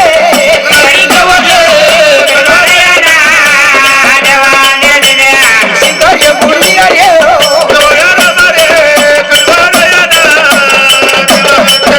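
Marathi devotional folk song: a wavering, ornamented sung melody over a fast, dense rattling percussion rhythm.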